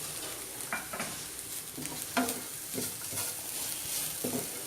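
Grated carrot frying in oil in a pan, sizzling steadily, while a spatula stirs it, scraping and knocking against the pan several times.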